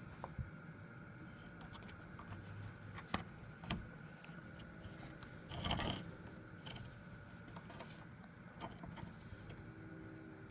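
Faint, scattered clicks and scrapes of a braided steel cable seal being threaded through a metal door hasp and handled, with a louder scraping rustle about halfway through. A faint steady high tone sounds underneath.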